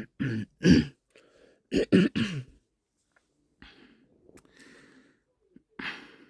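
A man clearing his throat and coughing: two loud bursts in the first two and a half seconds, softer noises after, and one short burst near the end.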